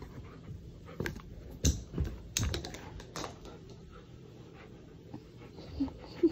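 A husky mouthing and knocking about a red rubber chew toy: a handful of irregular clicks and taps, the loudest about a second and a half and two and a half seconds in.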